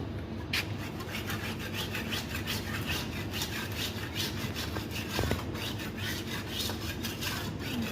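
Quick, repeated rasping scrapes, a few strokes a second, as of something being scraped or rubbed back and forth by hand. There is one short knock a little past the middle.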